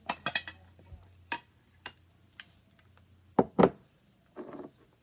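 Sharp clicks and knocks of small hard objects being handled: a quick cluster at the start, a few single clicks, two loud knocks past the middle, then a short rasping burst near the end, as a candle is being lit.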